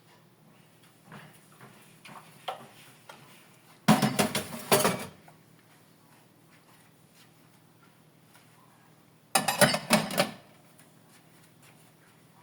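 Dishes and cutlery being handled. A few light clinks come first, then two loud bursts of clattering crockery, each lasting about a second: one about four seconds in and one near ten seconds.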